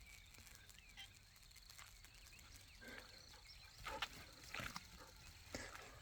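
Near silence broken by a few faint, short noises from excited dogs in the second half.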